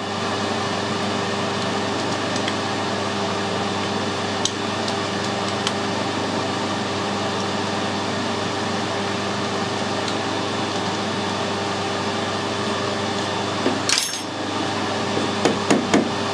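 Metal lathe running steadily with the cutter not cutting: an even motor and spindle hum. It briefly drops out with a click about 14 seconds in, and a few light metal knocks follow near the end as the workpiece is handled on the toolpost.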